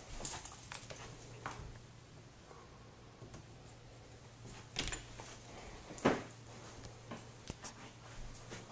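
Scattered light knocks and clicks over a steady low hum, with a sharper knock about six seconds in.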